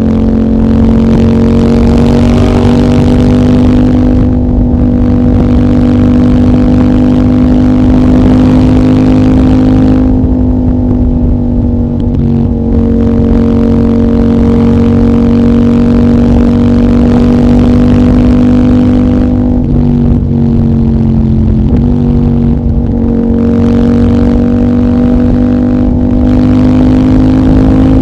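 CFMOTO 800NK parallel-twin engine running at fairly steady revs through its de-catted stock muffler. The note dips and picks up again a few times as the throttle eases and reopens.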